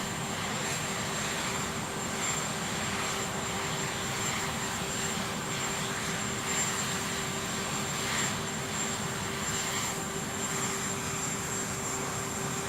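Aircraft engines running steadily: an even rush of noise with a constant hum and a high whine, no rise or fall.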